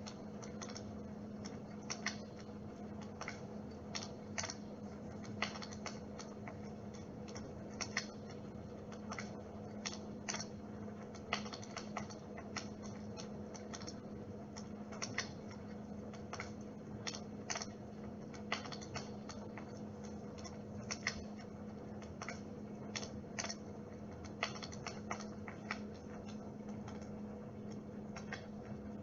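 Dimplex flame-effect humidifier running with a steady hum, with irregular crackling clicks over it, several a second, like a small fire.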